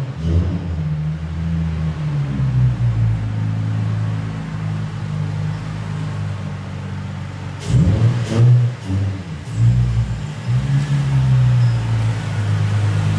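A car engine running, its low note shifting a little, with a few sharp knocks about eight seconds in.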